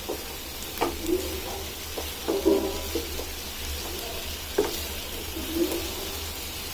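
A wooden spatula stirs and scrapes masala-coated raw banana slices around a non-stick frying pan over a faint sizzle. It knocks against the pan a few times and scrapes with short squeaks.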